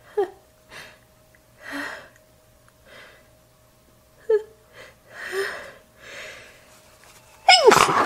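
A woman sneezing wetly and snottily into a tissue: a series of short sneezes and sharp breaths, then a loud, voiced sneeze starting near the end.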